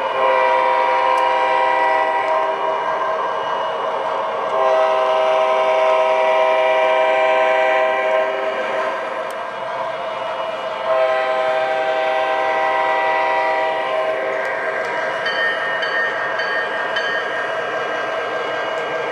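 Onboard sound system of an MTH RailKing O-scale SD45 diesel model locomotive blowing its electronic horn in three long blasts, over the steady running noise of the model train on the track. A few short high dings follow near the end.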